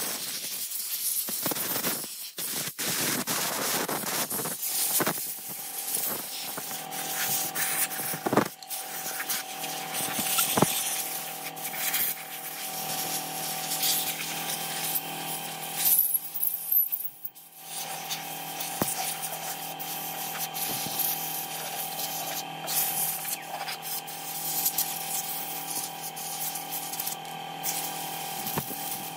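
A hand tool scraping and scrubbing grime off the plastic housing parts of an old Husqvarna chainsaw, in uneven strokes with scattered clicks and knocks. A steady hum sits behind it from about six seconds in.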